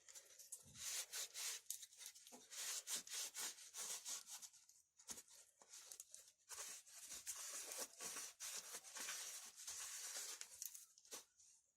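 A rag rubbing and wiping chainsaw starter parts clean of WD-40 and worn-off grime, in quick, irregular strokes.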